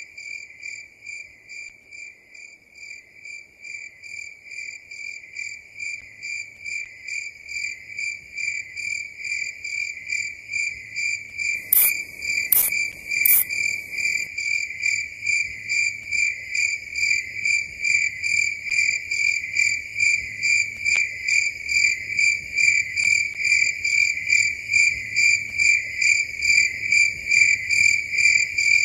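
A cricket chirping in an even, rapid rhythm of about two to three high-pitched chirps a second, growing gradually louder. Three sharp clicks come in quick succession about halfway through.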